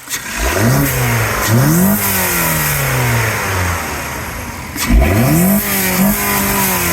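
2019 Mazda 3's 2.5-litre four-cylinder engine, breathing through a newly fitted Corksport short ram cold air intake, revved three times while stationary: the pitch climbs quickly with each blip and sinks back slowly toward idle.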